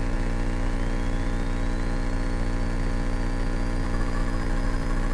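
Cessna 172K's four-cylinder Lycoming engine and propeller running at full throttle on the takeoff roll, a steady drone with a faint high whine rising in pitch over the first few seconds.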